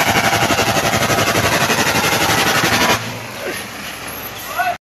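Dump truck sound with a loud, fast, even pulse for about three seconds, then suddenly quieter with a short rising sound near the end before it cuts off.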